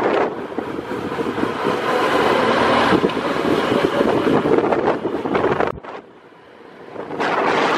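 Wind rushing over the microphone of a camera moving at riding speed alongside a road cyclist, with vehicle and road noise under it. Near the end it drops away sharply for about a second, then the rush returns.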